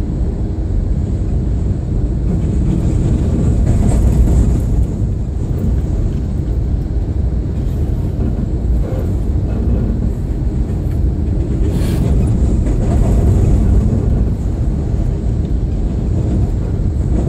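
Steady low rumble of an Amtrak passenger train rolling across a steel truss railroad bridge, heard from inside the coach, with a couple of brief clicks.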